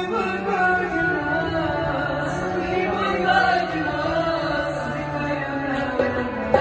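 A man singing a slow melody over a steady held drone accompaniment.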